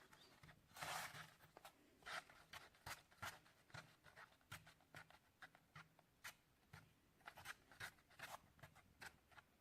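Spoon stirring glue in a bowl: faint, irregular scraping and tapping strokes, several a second.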